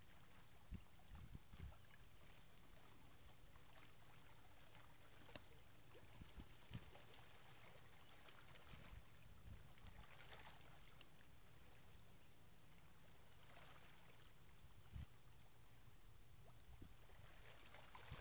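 Near silence: a faint steady low rumble of outdoor ambience, with a few light knocks scattered through.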